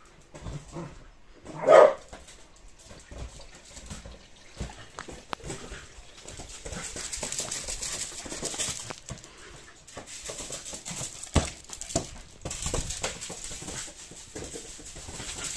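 A Yorkshire terrier puppy gives one sharp bark about two seconds in. Then its paws scrabble and crunch on gravel in long stretches as it chases a large balloon, with a few short knocks.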